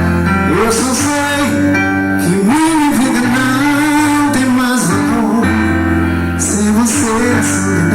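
A forró band playing, with a voice singing over the instruments and recurring percussion hits.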